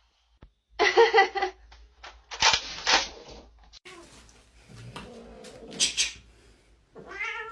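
A cat hissing and yowling in a few short, harsh bursts, with a long falling yowl starting near the end.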